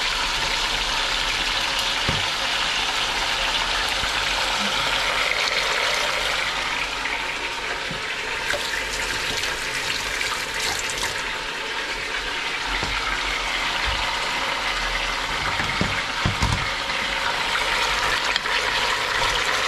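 Beef chunks frying in an aluminium pressure-cooker pot, a steady sizzling hiss. Midway, a kitchen tap runs for a few seconds, and near the end there are a few soft knocks.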